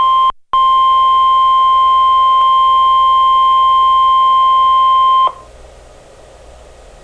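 NOAA Weather Radio alert tone, a single steady 1050 Hz beep, sounding from about half a second in for nearly five seconds and cutting off sharply. A faint hiss follows.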